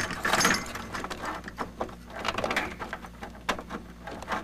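Plastic power-supply connectors and cables being handled as the 24-pin ATX power connector is pushed into a motherboard: a run of sharp, irregular clicks and rustles, with a low steady hum underneath.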